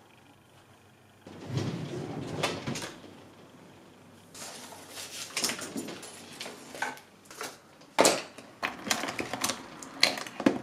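Hands sorting small items on a desk and in a desk drawer: rustling, light rattles and sharp clicks as things are picked up and set down, with a loud click about eight seconds in and another near the end.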